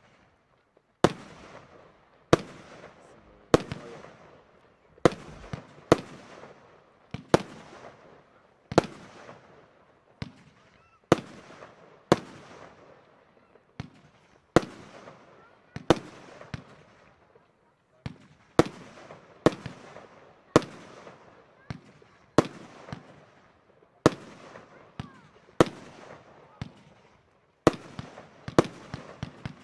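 Funke Funkenweide Blau firework cake firing shot after shot, roughly one a second. Each shot is a sharp report followed by a hiss that fades over about a second.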